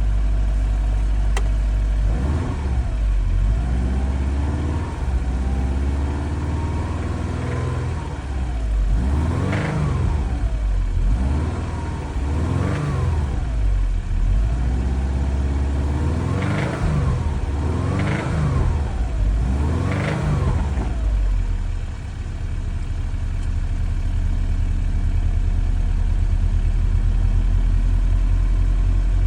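Subaru STI's turbocharged flat-four engine revved in a series of short blips from idle, each rising and falling back, the sharpest coming in quick succession in the latter half. It then settles back to a steady idle for the last several seconds.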